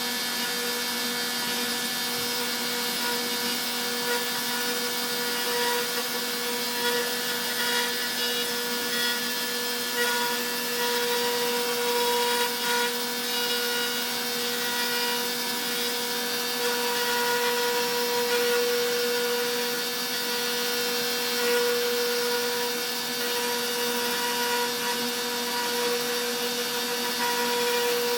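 Stepcraft M1000 CNC router spindle running with a steady whine as its V-bit carves wood, the rasp of the cut rising and falling slightly as the bit moves along the carving path.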